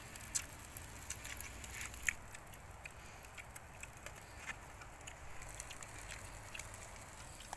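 Eating noises: scattered small clicks and smacks of people chewing rice and chicken with their mouths close to the microphone, mixed with the crinkle of the leaves the food is wrapped in.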